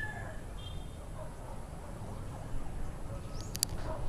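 The held end of a rooster's crow, cutting off just after the start. A steady low rumble follows, with a few sharp clicks about three and a half seconds in.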